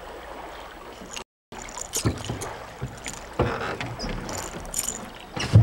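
Hollow knocks against a small aluminium boat and splashing as a hooked fish is played alongside, with wind on the microphone. The knocks come about two seconds in, again near three and a half seconds, and loudest near the end; the sound cuts out completely for a moment just over a second in.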